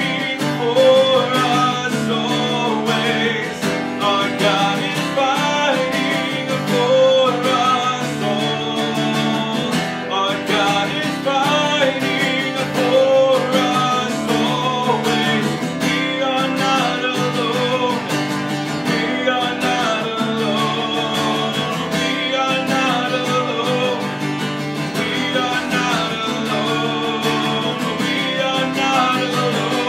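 A man singing a worship song, accompanying himself by strumming an acoustic guitar in a steady rhythm.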